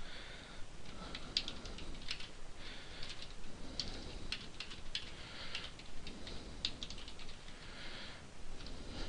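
Computer keyboard being typed on: faint, irregular keystroke clicks at an uneven pace.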